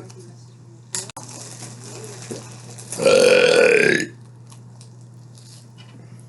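A person's loud burp, about a second long, a little past halfway through, its pitch dipping slightly at the end. A short click comes about a second in, and a steady low hum runs underneath.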